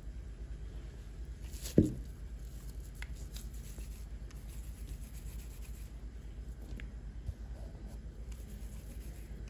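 Hands pinching and working soft şekerpare dough in a bowl, faint rubbing and handling noises over a steady low hum, with one sharp knock about two seconds in.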